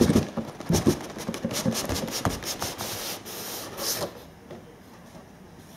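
Cardboard model-aircraft box being handled and opened: a run of scrapes and light knocks, with cardboard sliding against cardboard for about a second near the three-second mark, stopping about four seconds in.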